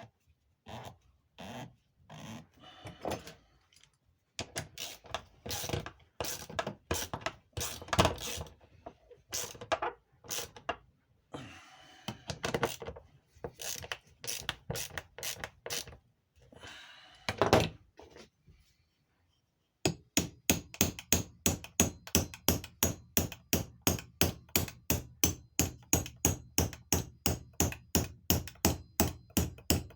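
Hammer tapping on the metal rim of a vacuum advance unit's housing, closing it up around the new diaphragm. Irregular taps at first, then after a short pause a fast, even run of about three blows a second.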